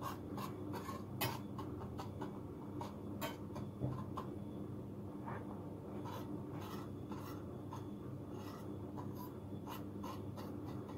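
Balloon whisk stirring dry granulated sugar in a stainless steel pan: irregular scratchy scrapes and light ticks as the wires drag through the grains and touch the pan, the sugar not yet melted.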